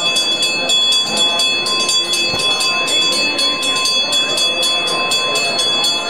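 A bell rung rapidly and without a break, several strokes a second, its ringing tones held throughout, over a murmur of voices.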